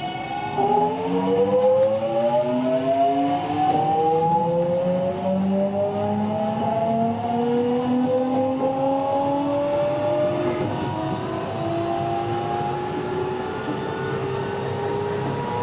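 Toshiba GTO-thyristor VVVF inverter and traction motors of a JR West 207 series 1000-subseries train accelerating, heard inside the car: a stack of whining tones rising in pitch, jumping to new pitches several times as the modulation changes, over running rumble. This car's modulation sound is unusually strange compared with other sets of the class.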